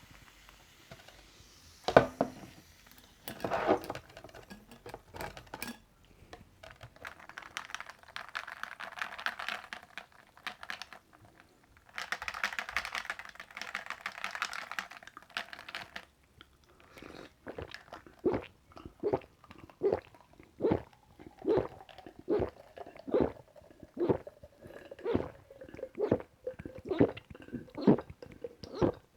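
A person drinking carbonated watermelon cider: a sharp click about two seconds in, two stretches of hissing noise, then a steady run of gulps at roughly one every 0.7 seconds.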